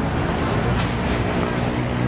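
Street-market background noise: a steady low drone with faint voices mixed in.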